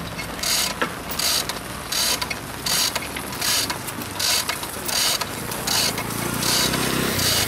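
Hand-operated chain hoist being hauled as it lifts a concrete utility pole. Its chain rattles and its ratchet clicks in short bursts, a little over one a second. A low steady hum comes in near the end.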